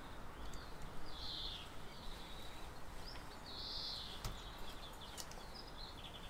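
Faint bird chirps, three short calls about two seconds apart, over a low steady background, with a couple of faint clicks.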